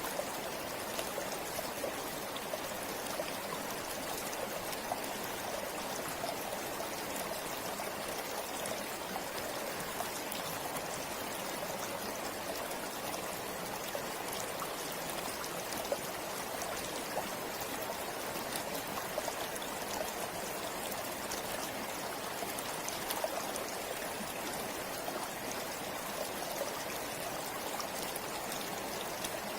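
A river or stream flowing over rocks: a steady rushing of water with small splashes and trickles throughout.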